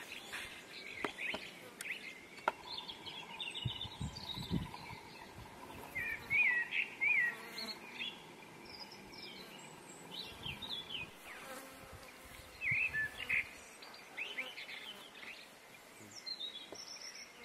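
A flying insect buzzing steadily around the flowers, with birds giving short chirps every few seconds.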